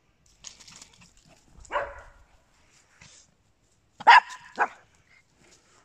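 Small dog barking: a softer bark near two seconds in, then two sharp barks about half a second apart a little after four seconds.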